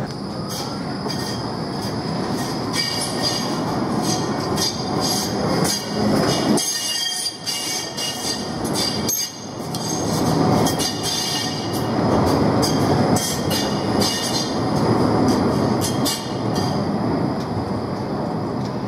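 Red low-floor Škoda ForCity Plus tram passing close by on the tight curve of a turning loop, running with a rumble as its wheels squeal against the curved rails in a high-pitched screech from about three seconds in until near the end.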